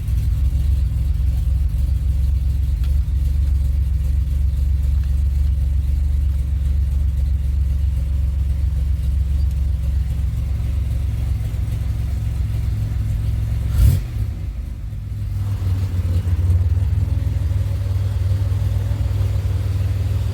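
2007 Pontiac Grand Prix GT's 3.8-litre V6 running steadily after starting, now that the fuse box has been swapped to cure its crank-no-start fault. A single sharp knock comes about 14 seconds in, after which the engine note shifts slightly.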